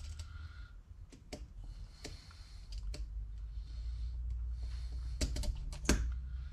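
Scattered light metal clicks and clinks as a pinion bearing is handled and slid onto the pinion of a Ford 9-inch rear end, with the sharpest click near the end, over a steady low hum.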